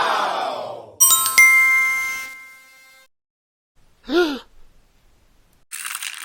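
A falling pitched tone, then a bright chime struck twice about a second in, ringing and fading over a second or so. A short pitched blip follows around four seconds in, and near the end a dense clicking rattle begins.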